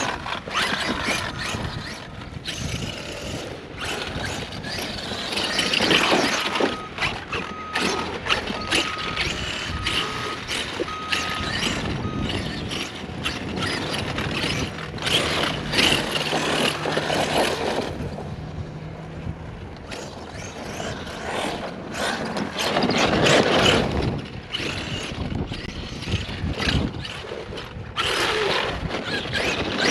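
Arrma Outkast 8S RC truck's brushless motor and drivetrain running in repeated bursts, surging and easing off as the truck is driven hard over soft dirt hills.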